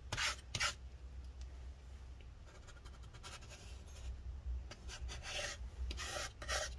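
A flat tool scraping alcohol-softened battery adhesive off the inside of a MacBook Pro's case in short rasping strokes. There are a few strokes in the first second and a busier run near the end, with quieter scraping in between.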